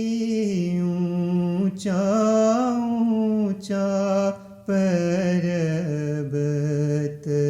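A single voice chanting a devotional recitation in long held notes that slide between pitches, in phrases broken by short pauses; a recited Ismaili ginan or qasida.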